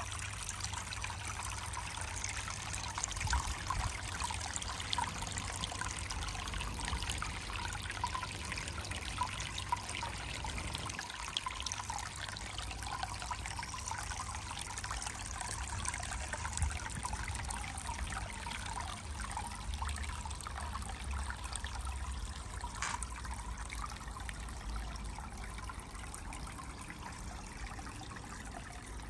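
Water spilling over a stacked-rock cascade and trickling steadily into a whisky-barrel pond.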